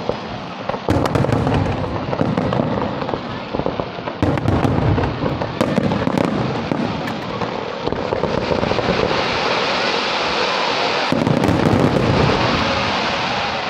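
Fireworks display: aerial shells bursting in a rapid barrage, with sharp bangs about a second in, around four seconds, and again past eleven seconds, under a continuous dense crackle that grows brighter over the last few seconds.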